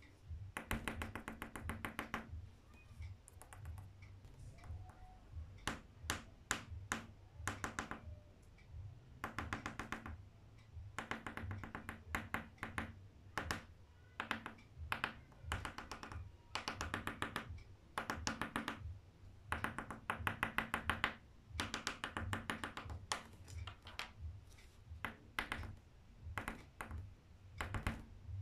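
Coloured pencil tip tapped and flicked rapidly on paper while dabbing in small star marks: quick bursts of light taps, each a second or two long, with short pauses between.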